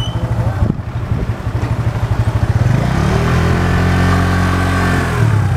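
Motorcycle engine running with a rapid, even putter, then revving up about three seconds in, holding the higher pitch for a couple of seconds and easing off near the end.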